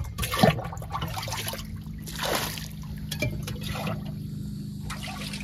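Water being bailed by hand out of a flooded jet ski's engine compartment with a metal cup: several short splashy scoops and pours, the biggest about two seconds in. A low steady hum runs underneath.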